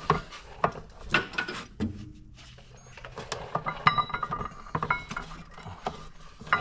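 Scattered clicks, knocks and light metallic clinks as hands struggle to work the drive belt off a Can-Am Maverick X3's CVT clutch, the belt and clutch-holding tool rattling against the metal sheaves.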